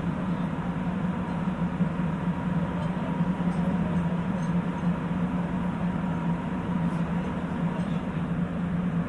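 Sapporo Municipal Subway Tozai Line 8000-series train running through the tunnel on rubber tyres, heard from inside the car. The ride sound is a steady low hum with a thin steady whine above it and even rolling noise, with no change in speed.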